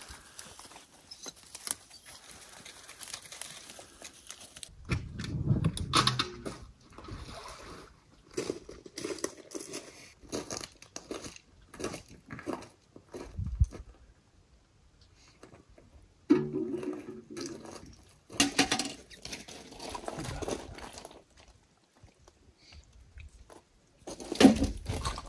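Irregular crunching and clatter of footsteps on a gravel-and-shell beach, broken by short quiet gaps.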